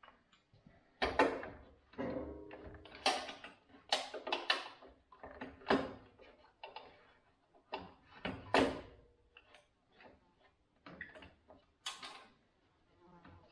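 Hand tools and metal parts being handled: irregular clinks, clicks and knocks, a few ringing briefly.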